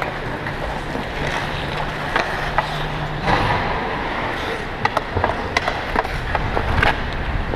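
Ice hockey skates scraping and carving on the ice, with sharp clacks of sticks and puck, most of them in the second half. A low steady hum stops about three seconds in.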